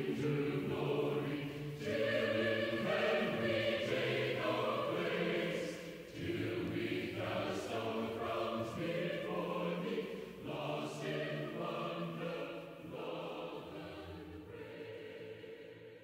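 Choral music: sustained sung chords that change every second or two, fading out over the last few seconds.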